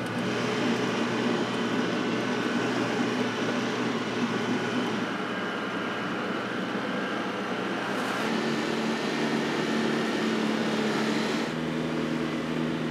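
Polaris Ranger 6x6 side-by-side driving along, its engine running steadily under the tire noise. The engine note changes about eight seconds in and again near the end.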